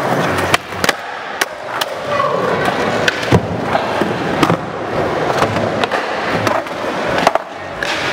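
Skateboard wheels rolling on a smooth concrete floor, with several sharp clacks of the board's tail popping and the deck landing during flatground tricks.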